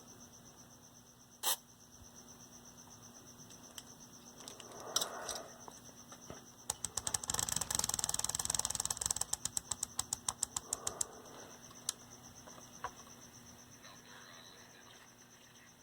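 A dirty switch on an old transistor radio being cleaned: a fast run of sharp clicks and crackles over a brief hiss for about four seconds in the middle, with a few single clicks before and after.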